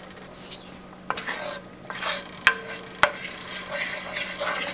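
Wooden spoon stirring melting butter and fatback drippings in a hot cast-iron skillet. The fat sizzles, and from about a second in the spoon knocks against the pan about three times.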